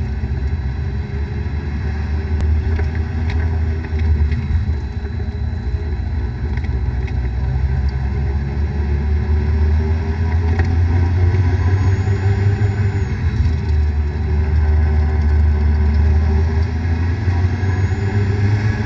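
A car running with a steady low drone, the noise of a bad bearing.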